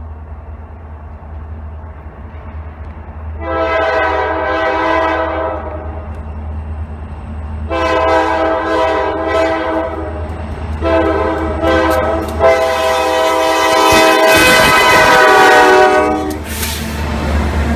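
Diesel freight locomotive's air horn sounding the grade-crossing signal, long, long, short, long, over the steady low rumble of the approaching diesel engines. The last blast is the longest and cuts off near the end.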